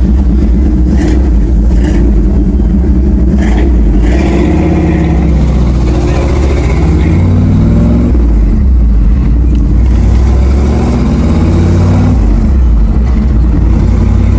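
A 1991 GMC Sierra pickup's engine pulling under load, its note rising and then dropping twice, as at gear changes.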